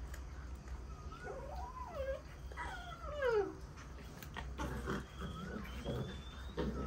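Puppies whining and whimpering: a few high, sliding whines, the longest falling in pitch about three seconds in, over a steady low hum.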